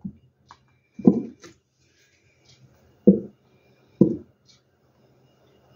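Near-empty plastic squeeze bottle of acrylic paint sputtering in three short bursts as it is squeezed out onto the canvas, the bottle running out of paint.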